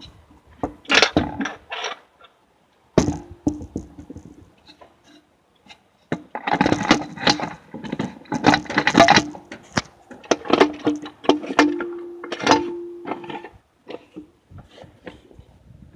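Metal Powerglide transmission parts knocking and clinking as they are handled during disassembly, some strikes leaving a short metallic ring. The clatter is densest in the second half, after two brief silent pauses.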